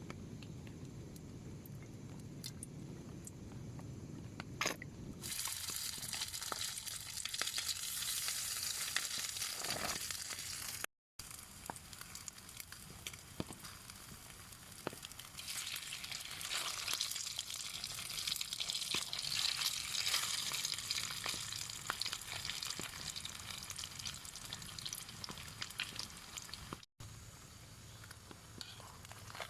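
Rain falling on a camping tarp: a steady, dense hiss with scattered sharper drop taps. It is duller for the first few seconds, then brighter and heavier, and it cuts out briefly twice.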